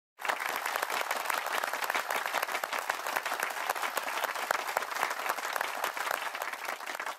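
Crowd applause: dense clapping that starts abruptly and thins out near the end.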